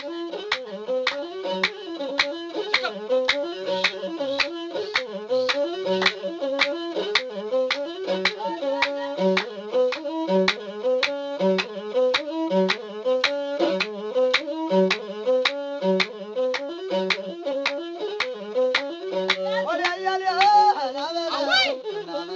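Ethiopian azmari dance music: a masinko, the one-string bowed fiddle, plays a short repeating melody over a steady drum beat of about two strokes a second.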